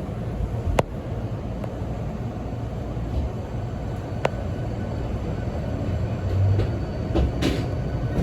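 Hankyu Kyoto Line electric train running, heard from on board: a steady low rumble, with a sharp click about a second in and another about four seconds in, and a short hiss near the end.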